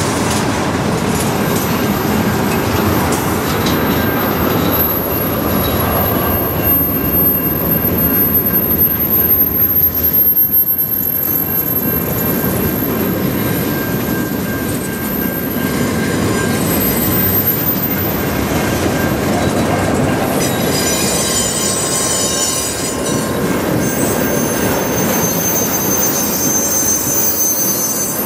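Freight cars of a mixed freight train rolling steadily past over the rails, tank cars and gondolas going by. From about two-thirds of the way through, high-pitched wheel squeal rises over the rolling noise.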